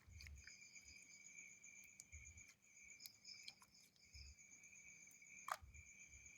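Near silence: a faint, steady high-pitched trill runs throughout, with a few soft clicks and light pops.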